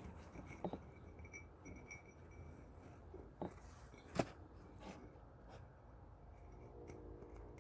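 Faint clicks and light taps of hands handling the oil filter housing and filter element parts, a few scattered knocks with the sharpest a little past halfway.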